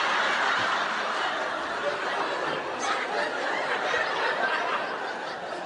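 Studio audience laughing, a continuous wash of many people's laughter that eases off slightly toward the end.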